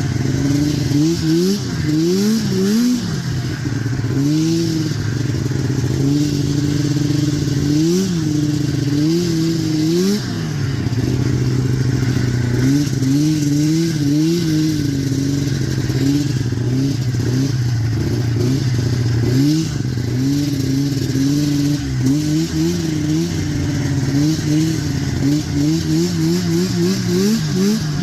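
1990 Arctic Cat EXT 530 snowmobile's two-stroke engine running under way, its pitch rising and falling again and again as the throttle is opened and eased off, with a run of quick blips near the end. The engine has a fresh top-end repair: new reed valves and cylinders.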